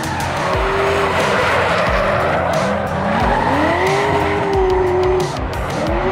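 Drift cars' engines revving up and down, one of them the BMW F22's LS3 V8, with tyres squealing through a sustained slide. Background music plays underneath.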